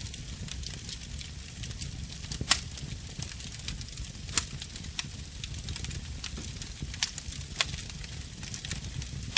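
Wood fire crackling, with irregular sharp pops over a low steady rumble. The loudest pops come about two and a half and four and a half seconds in.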